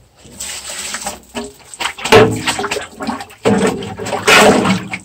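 Water sloshing and splashing in a metal drum in irregular surges as batik cloth is dunked and stirred in it on a wooden stick. The loudest surges come about two seconds in and again from about three and a half to four and a half seconds in.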